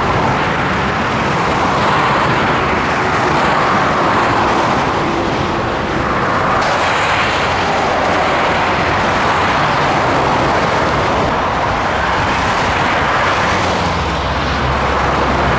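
Steady road traffic noise: tyres and engines of moving vehicles, with a deeper low engine hum joining near the end.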